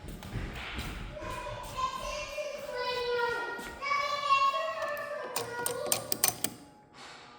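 A young child singing or vocalising without clear words, in a pitched, wavering voice, followed near the end by a quick run of sharp taps or knocks.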